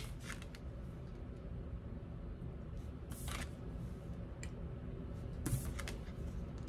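Tarot cards being slid and laid down on a wooden table: a few faint soft card rustles and taps over a low steady hum, the clearest about three and five and a half seconds in.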